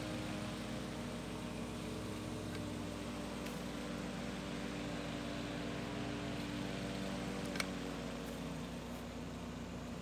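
Restored 1911 GE 'kidney oscillator' electric desk fan running steadily while oscillating: an even motor hum with several steady tones under the rush of air from the brass blades. A single short click comes about three-quarters of the way through.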